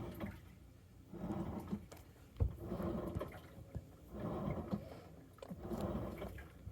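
Samsung washing machine drum turning wet laundry, a swishing slosh of water and clothes about every one and a half seconds, with an occasional knock.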